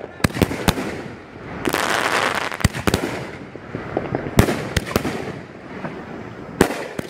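Mad Ox Double Barrel 500-gram fireworks cake firing its double-break shells: sharp bangs, many of them in quick pairs, as each shell breaks twice in the air. About two seconds in comes a spell of dense crackle from the crackling stars.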